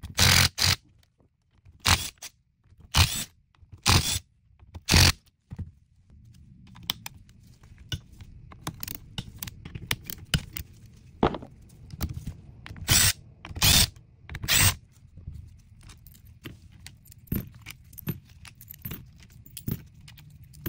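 Cordless impact driver hammering in short bursts, about a second apart, as it backs bolts out of an aluminium gearbox case; a second group of bursts comes about midway. Between them, loosened steel bolts click and clink as they are handled.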